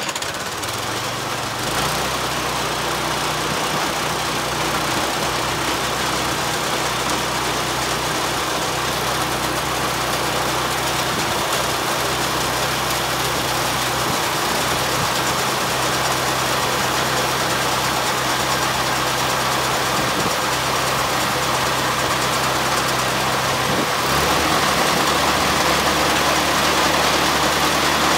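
Farm grain auger running, its drive engine humming steadily under a dense rattling churn from the auger. Near the end the engine note shifts and gets slightly louder.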